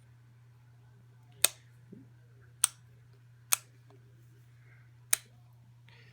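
The switch on a vintage Hoover 750 upright vacuum clicked four times, each a single sharp click, spaced unevenly about a second apart. The motor does not start.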